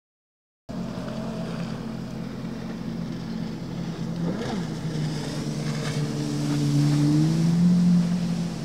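Jet ski engine running, its pitch climbing gradually through the second half and easing off at the very end, with a short rise and fall in pitch about four and a half seconds in. Wind buffets the microphone.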